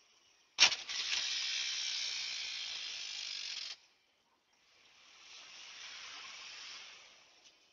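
SUV tyres spinning in snow with a hiss, in two spells. The first starts with a sharp click and cuts off suddenly after about three seconds. The second is quieter, swelling and then fading.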